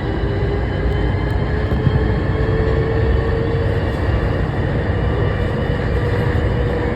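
Interior of the CDGVAL rubber-tyred automated shuttle train running between stations: a steady rumble of the running gear with an electric motor whine that rises slowly in pitch.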